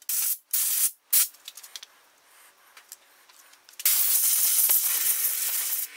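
Compressed-air blow gun hissing in three short blasts, then one longer blast of about two seconds with a faint low tone under it near the end.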